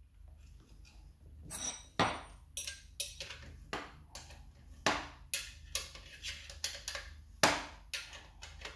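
Irregular sharp metallic clicks and taps, with three louder knocks about 2, 5 and 7.5 seconds in, as a Xiaomi M365 scooter's loosened front axle nut is worked off the axle by gloved hand.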